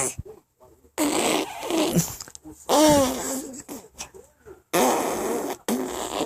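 Mouth noises: three spluttering raspberries blown through the lips, the middle one with a voice sliding up and down in pitch.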